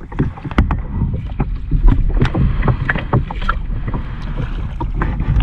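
A kayak being paddled and manoeuvred: an irregular run of knocks and splashes from the paddle and hull, over a steady low rumble.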